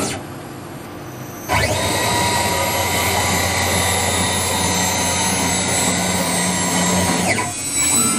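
CNC router's stepper motors driving the gantry in a rapid move. A motor whine and hum start abruptly about a second and a half in, sweeping up in pitch as the axes speed up. They hold steady, then sweep down and drop off as the head slows to a stop near the end.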